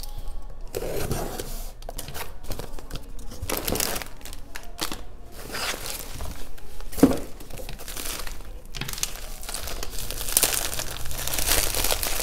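Packaging of a parcel of nail-art supplies crinkling and rustling as it is handled and torn open, with a sharp click about seven seconds in.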